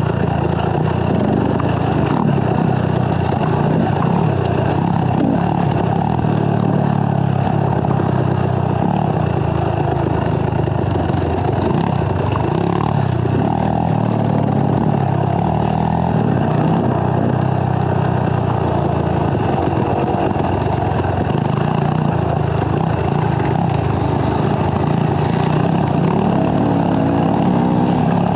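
Dirt bike engine running under way on a trail ride, its pitch rising and falling with the throttle.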